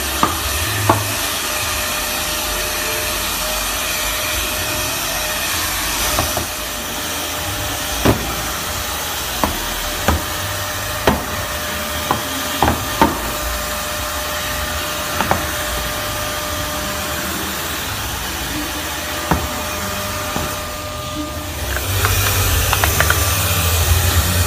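Hair dryer blowing steadily on clear paint protection film as it is peeled off car paint, with a scattering of sharp crackles and snaps from the film. The blowing drops away briefly near the end, then comes back with a deeper rumble.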